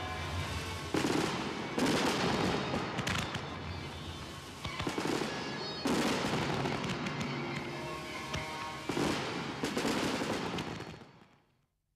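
Fireworks aerial shells bursting, a run of loud bangs every second or two over crackling, with music underneath; it all fades out near the end.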